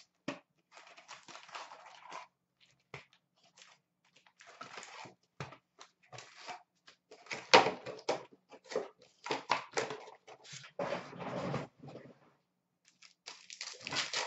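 Hands opening a box of hockey card packs: an uneven run of paper rustling, crinkling wrappers and short tearing rips as the filler sheet and packs are pulled out and handled. The loudest rip comes about seven and a half seconds in.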